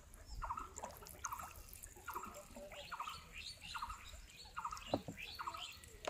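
Short pulsed chirping calls of a small animal, repeated about twice a second at a steady pitch.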